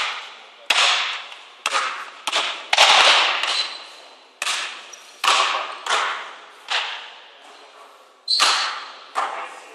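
Basketball being dribbled on a wooden gym floor: sharp slapping bounces, irregular and roughly one a second, each trailing a long echo in the hall.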